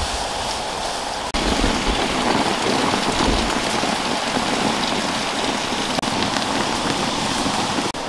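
Whole stingray sizzling steadily as it fries in hot oil in a large wok, with a brief break and a slight rise in level about a second in.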